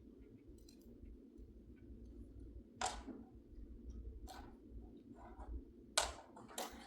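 Faint, separate sharp clicks and light knocks, about four of them a second or so apart, the loudest about six seconds in, over a low steady room hum.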